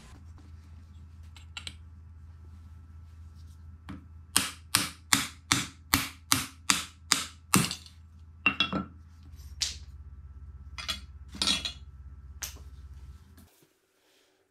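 A hammer striking the back of a hatchet set on a wooden chopping block, splitting off an old wooden handle: a quick run of about ten sharp metallic knocks, about three a second, then a handful of slower, scattered blows.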